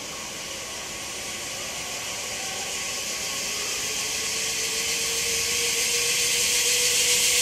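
Zipline trolley running along its steel cable: a steady hissing whir with a faint whine that rises slowly in pitch, growing louder throughout as the rider comes closer.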